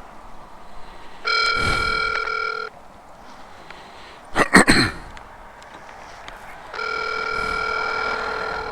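A phone's ringback tone playing through its speaker: two steady rings about four seconds apart as the outgoing call rings out. Between them, a little past the middle, comes one loud half-second sound that falls in pitch.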